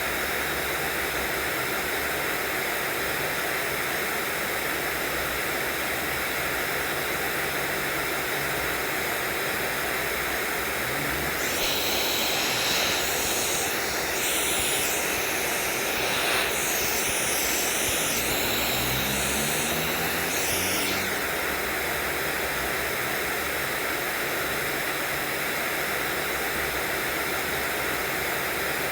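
Steady white noise, an even hiss at a constant level. For about ten seconds in the middle a second, brighter sound joins it, with a low hum that rises in pitch.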